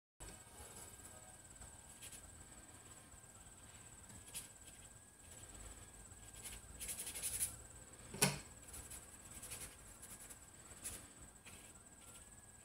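Watercolour brush working on paper: soft scratchy strokes, a cluster of them a little past the middle, and one sharper knock about eight seconds in. A steady high-pitched trill runs underneath.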